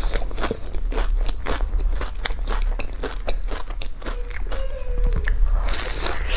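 A person biting and chewing crunchy food close to the microphone: a quick, dense run of crisp crunches.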